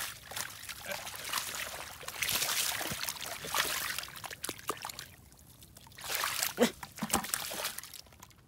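Hands churning and splashing in shallow muddy water and soft mud while groping for catfish. It comes in three bursts with short, quieter pauses between.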